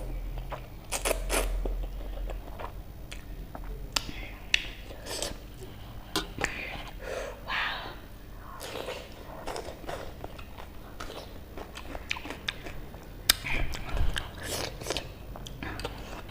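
A person chewing and biting spicy instant noodles close to the microphone, with many sharp, wet mouth clicks and smacks at an irregular pace.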